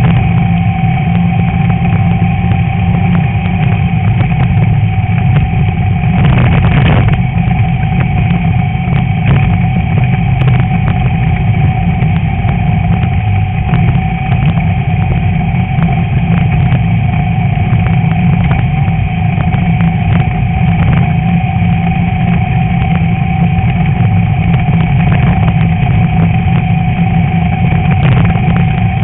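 VW Beetle's air-cooled flat-four engine running hard at steady revs under race load over rough dirt, with scattered knocks and rattles from the car jolting on the terrain and a louder jolt about seven seconds in.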